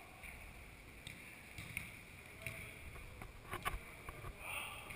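Football game on artificial turf: players' footsteps and ball kicks as a scatter of short sharp knocks, the loudest a quick double knock about three and a half seconds in.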